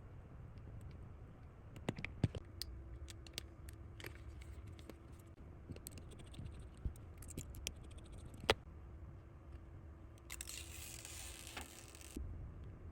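Small clicks and taps of hands and tools on the parts of an iPhone during a screen repair, with a scraping, tearing hiss for about two seconds near the end.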